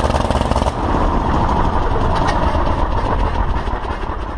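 Anzani three-cylinder W3 aero engine running on a test stand with its wooden propeller turning. About a second in, the sound abruptly loses its sharp top end and carries on as a lower, rougher, slower-sounding run.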